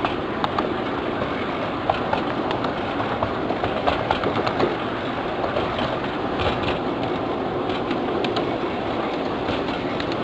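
1/8th-scale ride-on miniature train running along its track at its top speed, a steady running noise with irregular clicking of the wheels over the rails.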